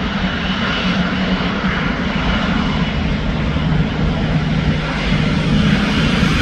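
Boeing 777-200's twin jet engines at takeoff power: a loud, steady noise with a low hum underneath.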